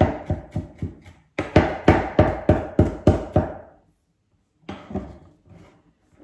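Chef's knife chopping fresh coriander on a wooden chopping board: a run of quick, even knocks of the blade on the wood, about four a second, that stops about three and a half seconds in, followed by a few fainter taps.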